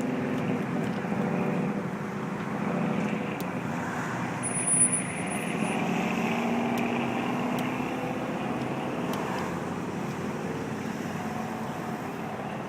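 Road traffic: motor vehicle engines running and passing, a steady hum that fades slowly.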